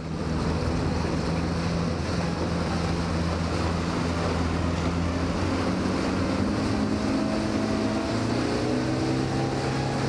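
Motorboat engine running under way, with a steady rush of water and wind; the engine note steps up in pitch around the middle and again near the end.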